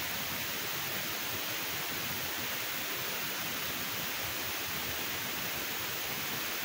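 Green beans and carrots stir-frying in a wok, making a steady sizzling hiss.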